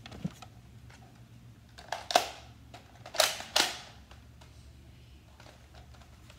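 Sharp plastic clacks from a toy foam-dart blaster being handled and loaded: two quick pairs of clacks, about 2 seconds in and again about a second later, typical of a magazine seating or the priming slide being racked back and forward.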